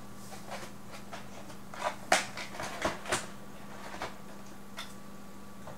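Computer hardware and its packaging being handled: a scatter of short clicks and rustles, the loudest about two seconds in, over a steady low electrical hum.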